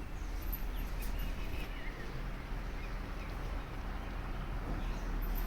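Steady low rumble of outdoor background noise with faint bird chirps now and then.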